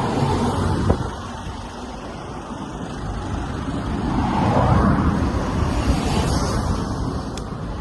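Road traffic: a motor vehicle passes, growing louder to a peak about five seconds in, then fading, over a steady low rumble.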